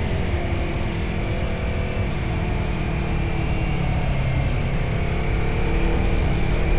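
Motorcycle engine and exhaust running under way, with a low wind rumble; the engine note sags about three to four seconds in, then climbs steadily as the bike accelerates.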